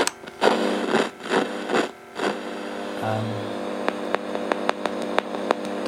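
Amplifier of an old BASF 9220 cassette recorder on play with no tape, sounding through its own speaker: a steady hum and hiss, with rustling crackles in the first two seconds. Near the end comes a quick run of sharp clicks as a finger touches the playback head. The sound shows that the playback amplifier works.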